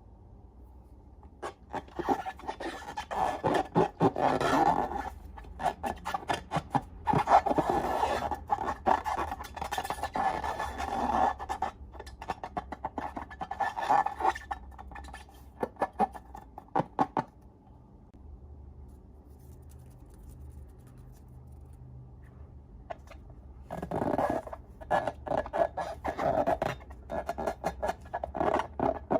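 Slime being squished and worked by hand: bursts of wet crackling and clicking that go quiet for several seconds past the middle, then start again.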